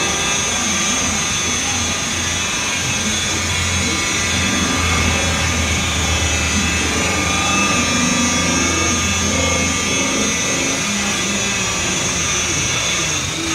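DeWalt corded rotary polisher running steadily with a foam pad buffing a plastic truck headlight lens, its motor giving a constant whine. A deeper hum swells in the middle and eases near the end.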